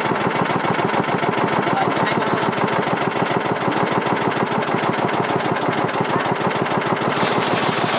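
Small boat's engine running steadily, a rapid, even train of firing pulses, with a brief hiss near the end.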